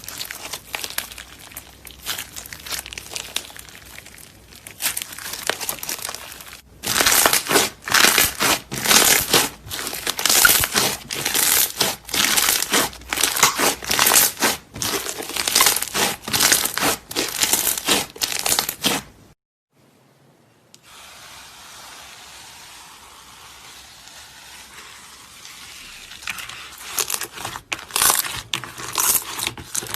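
Slime being squeezed and pressed by hand: a dense run of crackling, popping clicks that grows louder about seven seconds in. It breaks off briefly past the middle, then quieter handling follows and the crackling picks up again near the end.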